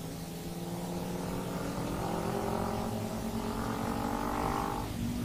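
Motorcycle engine running under way and accelerating, its pitch rising slightly and getting louder from about two seconds in, over steady wind and road noise.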